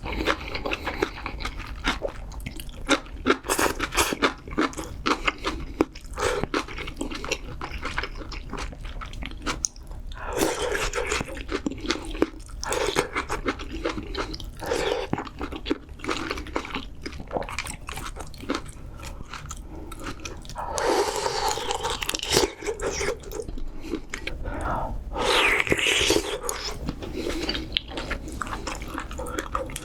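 Close-miked eating of spicy seafood ramyeon: irregular wet chewing and crunching, with louder, longer mouth sounds about 10, 21 and 25 seconds in.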